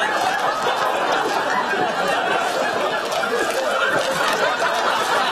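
Studio audience laughing steadily throughout, many voices blended together.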